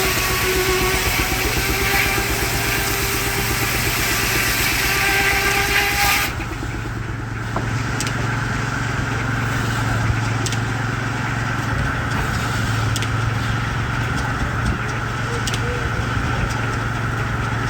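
Circular sawmill blade whining and rasping through a log, the cut ending abruptly about six seconds in. The steam-driven mill then runs free with a steady low hum, a fainter high whine and occasional clicks.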